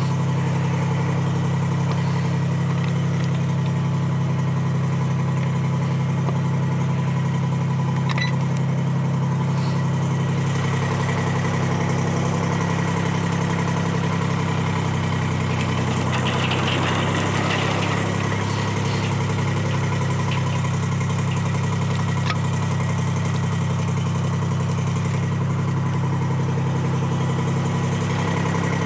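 Detroit Diesel 3-71 two-stroke three-cylinder power unit running steadily while driving a sawmill. A short, rougher noise joins it a little past halfway through.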